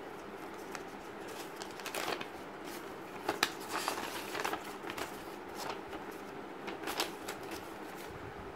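Paper warranty card and product-information leaflets being handled and shuffled by hand, with light rustles and short paper snaps and flicks scattered through, a few of them a little sharper in the middle.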